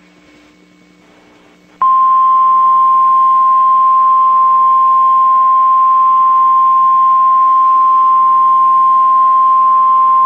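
NOAA Weather Radio warning alarm tone: one steady, loud, high tone at about 1050 Hz. It starts abruptly about two seconds in, after a short pause. It marks the start of a tornado warning broadcast, here a statewide drill.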